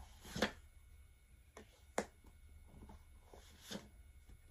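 Tarot cards being handled: a few faint clicks and soft swishes of card stock, with the sharpest click about two seconds in.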